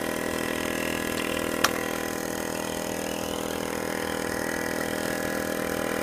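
Small portable single-piston air compressor running steadily as it pumps air through its hose into a car tyre that is nearly full. One sharp click about one and a half seconds in.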